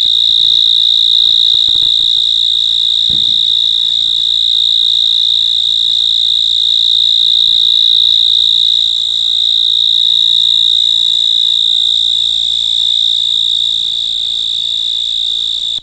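A mole cricket singing: a loud, unbroken high-pitched buzz held at one steady pitch.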